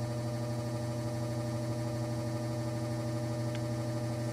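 Steady electric hum of a running ventilation fan, a low tone with even overtones that holds level throughout, with one light click about three and a half seconds in.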